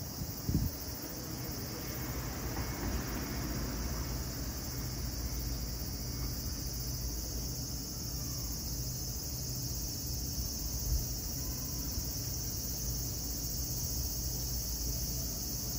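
Steady high-pitched insect chorus over a low background rumble, with a brief knock about half a second in.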